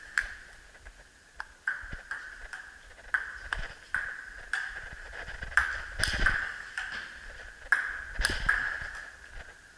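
Table tennis rally: a plastic ping pong ball clicking off the table and the rubber-faced paddles in an uneven series of sharp pings, about one or two a second.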